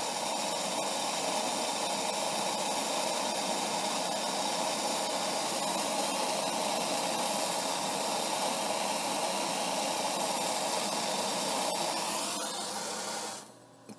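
Propane torch flame hissing steadily while heating a titanium dab nail to high temperature, then shut off suddenly near the end, followed by a faint click.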